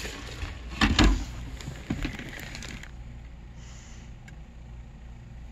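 A wooden board knocking and scraping as it is lifted off the top of a rabbit burrow, with a loud thump about a second in and a smaller knock a second later.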